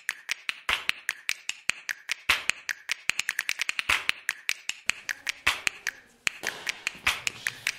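Rapid series of sharp snapping clicks, several a second, from an edited-in intro sound effect, with a short break a little after six seconds.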